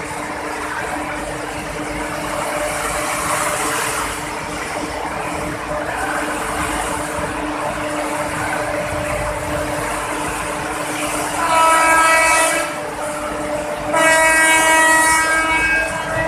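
A train's air horn sounds twice: a blast of about a second some eleven seconds in, and a longer blast of about two seconds near the end. Underneath is a steady hiss of heavy rain and train running noise with a constant low hum.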